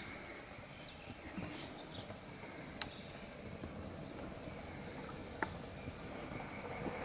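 Steady high-pitched drone of insects in dry forest, holding several tones at once. Two short sharp clicks cut through it, a little under three seconds in and again about five and a half seconds in.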